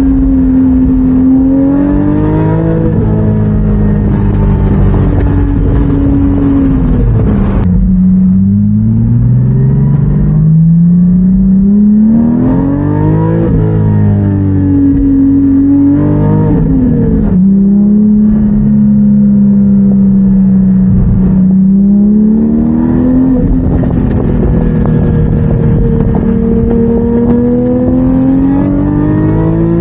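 A 2020 Porsche 718 Spyder's flat-six engine and exhaust running while the car is driven. The engine note rises and falls with throttle and gear changes, with one long climb in pitch about a third of the way through, then a steadier drone that slowly rises near the end.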